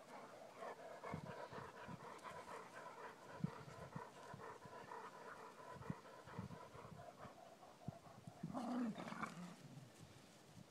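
A Labrador puppy and adult Labrador retrievers playing: faint panting and the scuffling of paws, over a faint steady hum. About eight and a half seconds in, one of the dogs gives a short, louder vocal sound.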